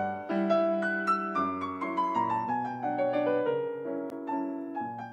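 Background piano music: a gentle melody of single notes stepping downward over held lower notes.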